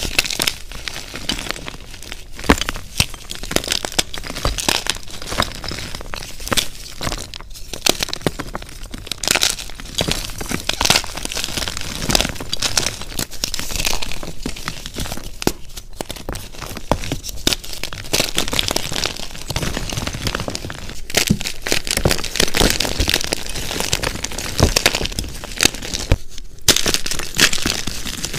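Blocks of gym chalk (magnesium carbonate) being squeezed and crumbled by hand: dense, crisp crunching and crackling as the blocks break into pieces. There are a couple of brief pauses.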